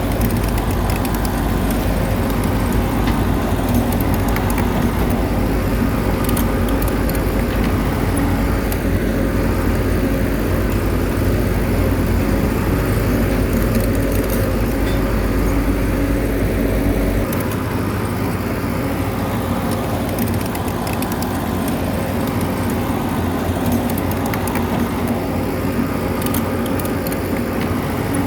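Bulldozer's diesel engine running steadily under load, with scattered light clanks. The deepest rumble drops away about two-thirds of the way through.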